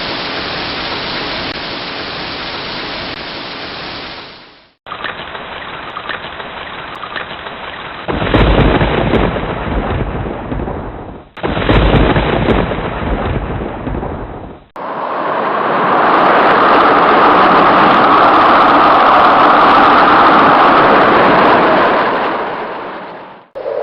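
A run of storm sound effects: steady rain, then rain with two heavy rolls of thunder, then a louder steady rushing noise of a downpour, each clip cut sharply to the next.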